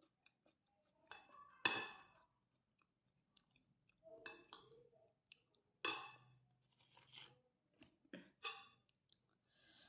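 A person eating with the mouth near the microphone: chewing fried rice and crunching krupuk crackers in about six separate bites, with a few clinks.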